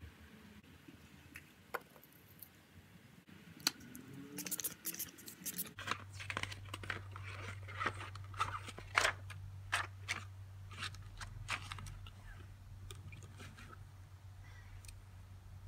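Light scattered clicks and taps while makeup is put on. After a cut, paper rustling and clicks as the pages of a spiral-bound planner are handled and turned, over a steady low hum.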